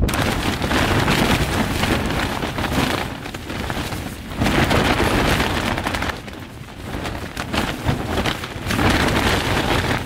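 Strong wind gusting against a tent, the fabric flapping and rattling in loud surges, easing off briefly about three seconds in and again between six and nine seconds.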